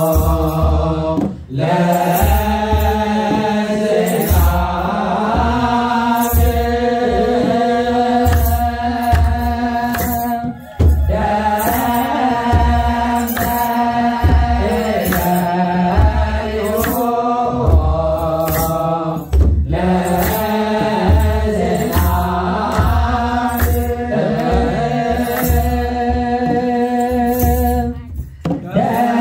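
An Eritrean church hymn sung by a group of voices together over a regular low beat, in long repeated phrases with short breaks between them.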